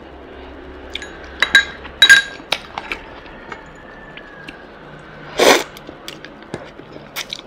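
Close-miked eating: wooden chopsticks clinking against a bowl and pan, with a few sharp ringing clinks about one and a half and two seconds in and smaller clicks between. A brief, louder noisy burst comes about five and a half seconds in.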